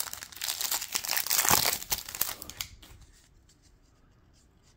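Foil wrapper of a Panini Contenders football card pack crinkling and tearing as it is opened. The crackle dies away about three seconds in.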